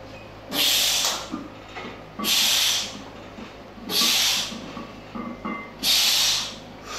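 Four forceful breaths out, each just under a second long and about 1.7 s apart, from a lifter pressing a 150 kg barbell through bench press reps.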